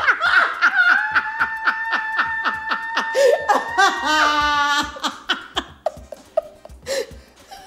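Women laughing hard in rhythmic bursts, with a steady high-pitched tone held under the laughter for about three seconds. The laughter dies down about two-thirds of the way in.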